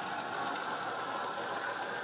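Model freight wagons rolling past on the track, with light irregular clicking of wheels on rails, over the steady engine sound of a Hornby OO gauge Class 50 diesel, played by its Loksound 4 sound decoder through an EM1 and megabass speaker.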